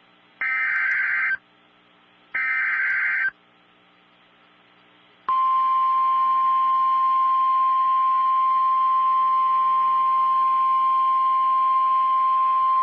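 Emergency Alert System alert signal. First come two short bursts of warbling digital header data, each about a second long and about two seconds apart. About two seconds later a loud, steady single-pitch attention tone begins, announcing a new severe thunderstorm warning.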